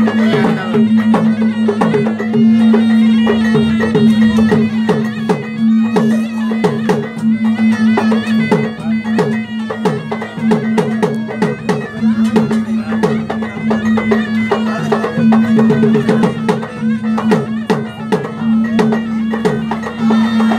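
Bugis-Makassar gendang drums beating a fast, dense rhythm, many strokes dropping in pitch, over a sustained reed-pipe tone that holds a steady note and pauses now and then.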